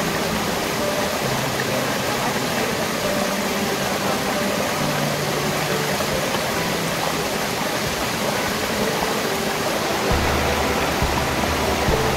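Water rushing steadily over a rock in a small cascade and splashing into a shallow rocky stream pool, with soft background music of slow held notes on top.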